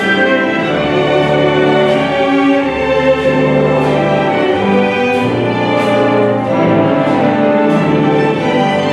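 Symphony orchestra playing a sustained classical passage, bowed strings to the fore, in held chords that shift every second or so.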